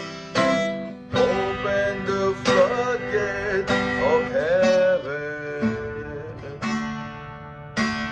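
Acoustic guitar strumming chords, each strum left to ring, about once a second, with a wavering melody line over it in the middle.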